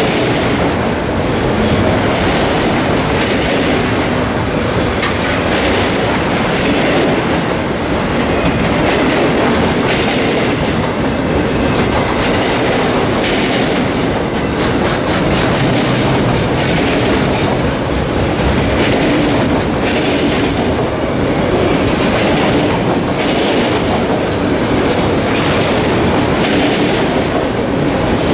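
Freight train of autorack cars rolling past at a grade crossing: a steady rumble and clatter of steel wheels on the rails. A brighter, high-pitched hiss of wheels on rail swells about every two seconds as the cars' trucks go by.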